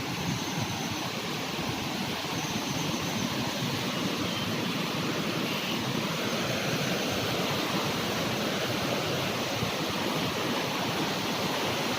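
Waterfall falling, a steady even rush of water.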